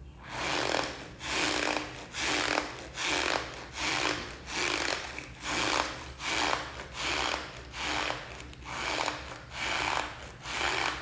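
Leftover starch being squeezed over and over, each press giving a squeaky, crunchy rub. The presses come in a steady rhythm of about three every two seconds.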